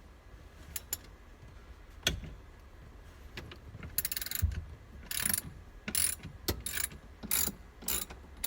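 Hand ratchet clicking in short bursts, one per back-swing of the handle: a few single clicks at first, then a run of quick strokes as a fastener is turned.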